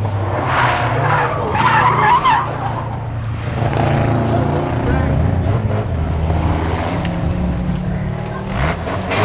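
Hillman Imp's rear-mounted four-cylinder engine working hard through a tight corner, its pitch rising and falling, while the tyres squeal and skid as the car slides, loudest in the first couple of seconds.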